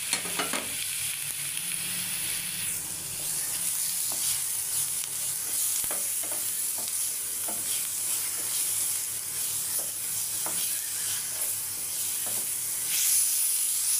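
Onion, tomato and spice masala sizzling in ghee in a stainless steel frying pan, being stirred and fried with a wooden spoon that scrapes and taps against the pan about once a second.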